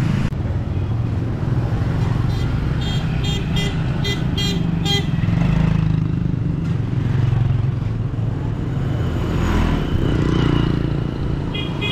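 Roadside traffic running with a steady low rumble. A vehicle horn sounds a quick run of short toots from about one to five seconds in.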